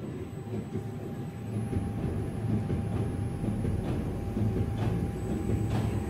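EECP MC3 counterpulsation machine's air pump running with a steady low hum that grows louder about two seconds in as treatment resumes, with faint soft pulses about once a second.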